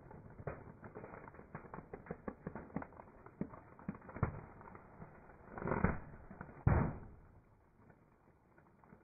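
Long rubber modelling balloons creaking and squeaking as a slowly rolling car tyre presses onto them, with many small crackles. About six seconds in there is a louder half-second rush, then a sharp bang just after that dies away.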